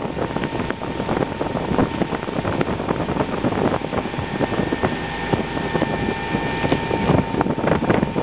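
Motorboat running at speed while towing, the engine and the rushing wake mixed with wind buffeting the microphone in irregular gusts.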